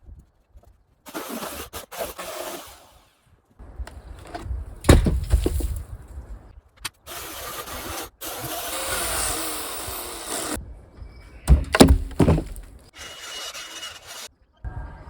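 Old wooden railway sleepers being dismantled, in short cut-together bursts. There are heavy wooden thuds and knocks, loudest about five seconds in and again near twelve seconds, and a steady rasping noise for a couple of seconds in the middle.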